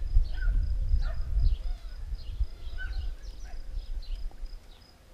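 Wind buffeting the microphone with a low rumble that eases in the second half, and many short bird chirps scattered throughout.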